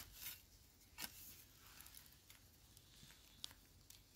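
Near silence, with a few faint scrapes and small clicks of fingers working through dry soil and twigs around a wild yam tuber.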